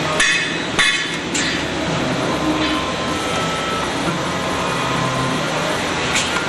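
CNC spring-forming machine running, its radial tool slides clicking and clinking as they bend wire into a spring, over steady machine noise. Three sharp clicks come in the first second and a half and another near the end.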